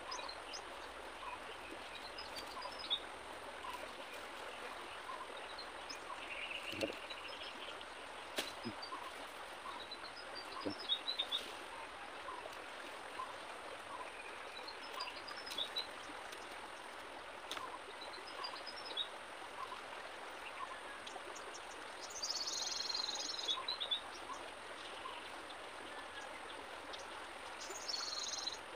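Steady rush of running water from a stream. Over it, a bird repeats a short high chirping phrase every few seconds, fainter regular chirps tick along lower down, and there are a few clicks and two brief scratchy bursts near the end.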